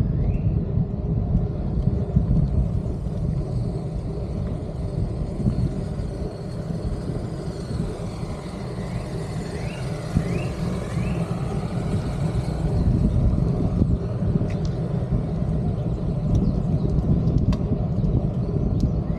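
Steady wind rumble on a moving action camera's microphone, mixed with road noise, while riding along a street. A few short rising chirps come through about halfway.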